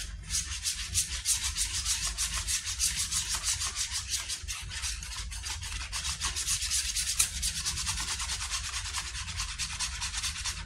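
Wire whisk beating eggs in a bowl: a fast, steady rhythm of scraping strokes against the sides of the bowl.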